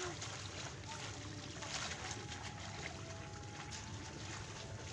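Wind rumbling on the microphone in an open field, with scattered light crackles and rustles from peanut plants being pulled out of wet ground by hand.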